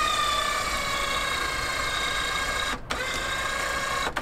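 Electric WARN winch on a Suzuki Jimny whining steadily as it winds in its line under load, its pitch sagging a little as it takes the strain. The whine breaks off briefly twice near the end.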